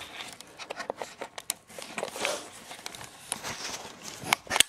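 Handling noise: a run of light clicks and knocks with rustling as the cardboard gun box and its foam lining are moved about, with two sharper clicks near the end the loudest.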